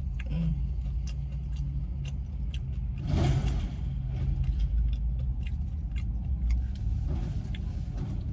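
Car engine idling steadily, heard from inside the cabin, with scattered small clicks. A brief rush of noise comes about three seconds in.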